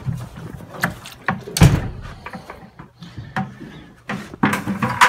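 A run of knocks and thumps from goat kids clambering and bumping about a wooden pen. The loudest knock comes about one and a half seconds in, with a cluster more near the end.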